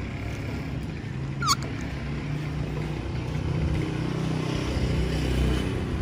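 A ringneck parakeet gives one short, sharp squawk about a second and a half in, over a steady low mechanical hum.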